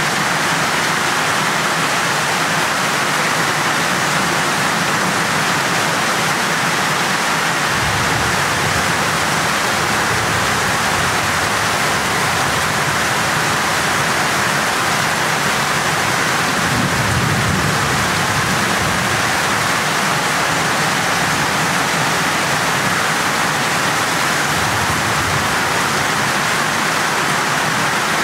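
Heavy rain pouring down steadily, with a brief low rumble a little past halfway.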